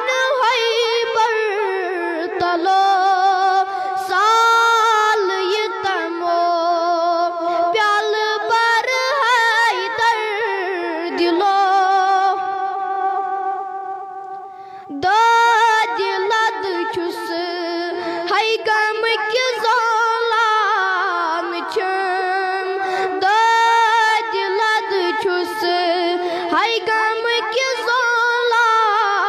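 A boy singing a Kashmiri naat solo into a microphone, in a high voice with long held, wavering notes. He breaks off for a moment about halfway through, then carries on.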